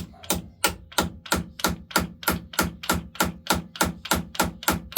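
Hammer striking a punch against the bronze adjusting collar of a lathe's spindle bearing, an even run of sharp taps about three a second. The collar is being driven round to take up slack in the bearing.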